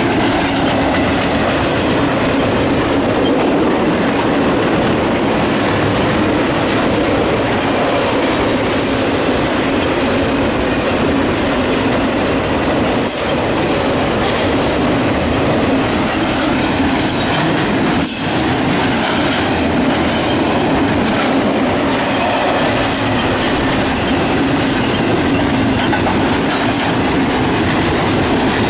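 Freight cars of a long CSX intermodal train, flatcars carrying highway trailers, rolling past close by: a steady loud rush of steel wheels on rail with a running clickety-clack. Two sharper knocks come about halfway and two-thirds of the way through.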